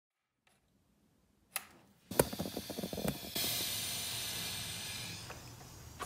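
A few clicks and knocks, then a steady high hiss of escaping air that starts about a third of the way in and slowly fades: air leaking from a BMW engine's intake, the sign of a vacuum leak.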